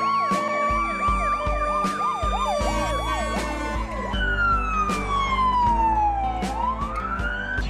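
Ambulance sirens: a fast warbling yelp for the first few seconds, then a slow wail that falls steadily and begins to rise again near the end.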